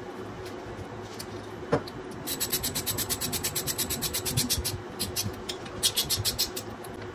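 Small ratcheting mechanism clicking in three quick runs, about nine clicks a second, the longest lasting over two seconds, after a single sharp click; a faint steady hum runs underneath.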